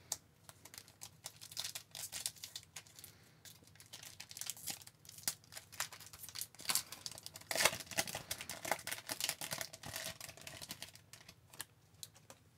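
A hockey card pack wrapper being torn open and crinkled while the cards are handled: a quiet run of small crackles and rustles, busiest about two thirds of the way through.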